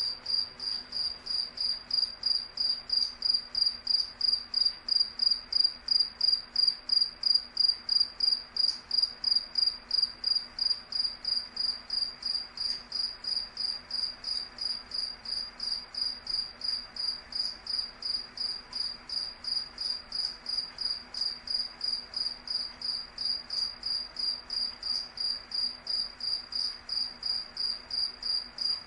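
A cricket chirping steadily: a high, clear chirp repeated evenly at about three a second.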